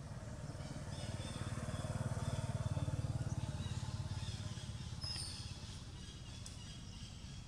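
A motor engine running, growing louder over the first few seconds and then fading away. A brief high chirp sounds about five seconds in.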